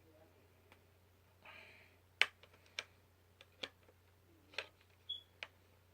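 Hard plastic clips of an OtterBox Defender case's two-piece shell being pried loose by hand: a short rustle, then about seven sharp plastic clicks and snaps, the loudest a little after two seconds in.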